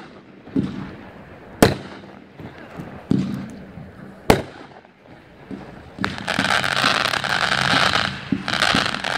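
Winda 'Zombie Driver' 500-gram fireworks cake firing: dull launch thumps and two sharp bangs in the first half, then from about six seconds a dense, continuous crackle from a volley of tailed shots, dipping briefly just after eight seconds.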